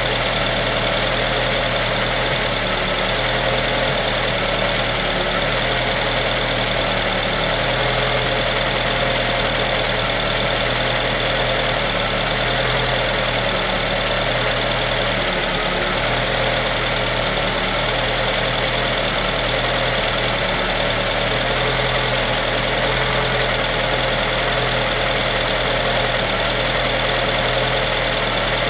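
2003 Acura RSX Type S's 2.0-litre four-cylinder engine idling roughly, its low note wavering unevenly; the cause of the rough idle is unknown to the owner.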